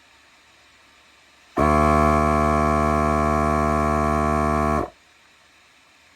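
Milwaukee M18 cordless tire inflator's compressor running for about three seconds with a steady, even-pitched hum, starting abruptly and cutting off sharply. It works in short runs toward the programmed 33 psi, and this cut-off is the inflator shutting itself off at target pressure.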